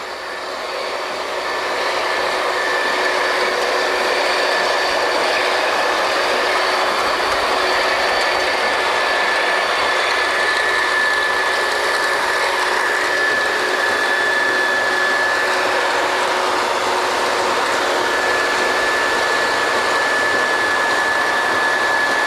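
Drilling rig machinery running loud and steady, a dense mechanical noise with a steady high whine through it, swelling over the first couple of seconds and then holding level.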